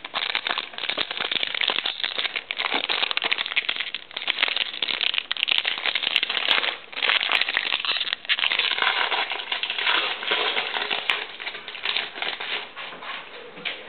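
Crinkling and crackling of a foil trading-card pack wrapper being handled, with many quick crackles and short pauses.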